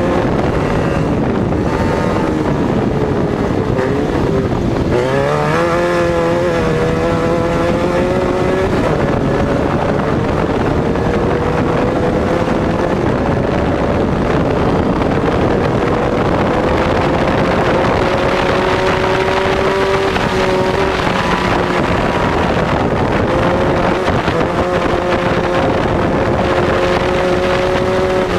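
Volkswagen-based race buggy's engine running hard under load, heard on board: the revs drop about four seconds in and climb back, then rise slowly for a long stretch before dipping at about twenty seconds. Wind noise on the microphone throughout.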